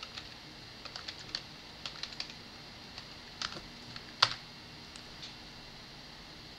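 Typing on a computer keyboard: irregular, scattered keystrokes as a short search phrase is entered, with one sharper, louder key click a little past four seconds in.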